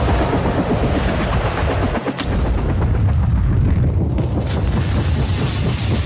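Wind buffeting the microphone: a loud, irregular low rumble, with a sharp crack about two seconds in.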